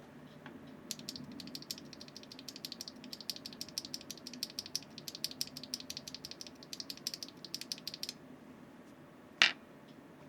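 Typing on a Neo 65 custom mechanical keyboard with Keygeek Higanbana linear switches on a carbon fiber plate with no foam: a fast run of clacky, high-pitched keystrokes that starts about a second in and stops about eight seconds in. One sharper, louder single click follows near the end.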